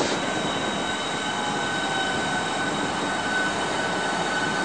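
Class 395 Javelin electric multiple unit rolling into the platform: a steady rushing running noise with a steady high-pitched whine that starts about a second in.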